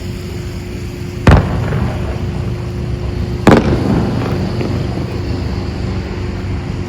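Aerial fireworks shells bursting: two loud bangs about two seconds apart, the first about a second in, each with a short echoing tail, over a steady low hum.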